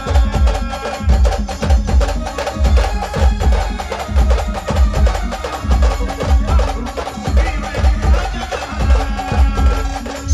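Brass band playing an instrumental passage of a slow Marathi song: held brass notes and a wavering melody over a steady drum beat.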